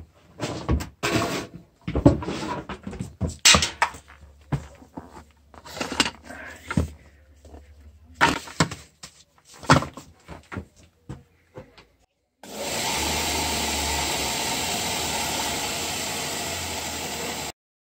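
Knocks and rattles of cables and a red industrial plug being handled and plugged together, then a combined bench grinder and belt sander running steadily with a low hum for about five seconds, cutting off suddenly.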